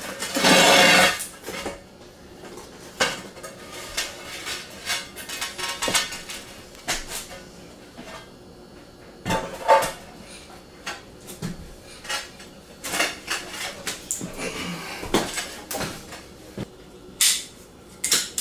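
Scattered clinks and knocks of metal hand tools and loose porcelain tile on a tile floor during tile removal, with a loud clatter lasting about a second at the start.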